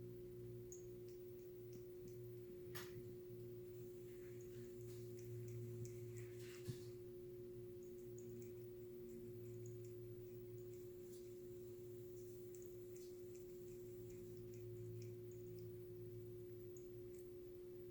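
Faint steady hum carrying a single held tone, with faint scattered ticks and one sharp click about seven seconds in.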